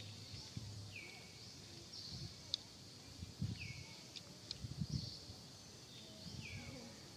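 Forest ambience with a bird calling: a short call that falls in pitch, repeated three times, about two and a half seconds apart. A few sharp clicks and low rustling scuffs come in between.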